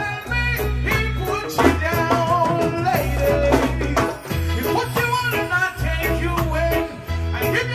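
A male reggae singer singing live into a microphone over band backing with a steady beat and a bass line.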